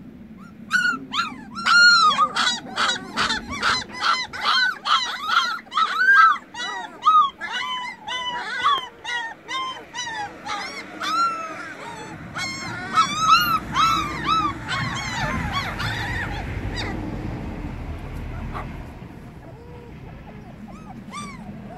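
A litter of very young puppies yelping in rapid, high-pitched calls, many overlapping, calling for their absent mother. The yelps thin out after about seventeen seconds, with only a few near the end.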